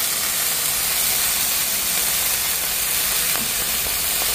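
Beef hamburger patties sizzling steadily as they sear in a hot, oil-free nonstick frying pan.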